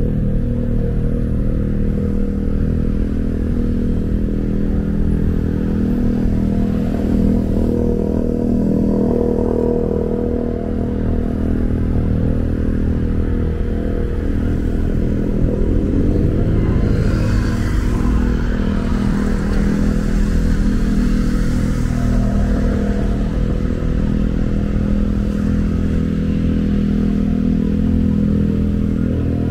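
Steady low rumble of engines and traffic. About two-thirds of the way through, a vehicle swishes past on the wet road, its tyre hiss swelling and then fading.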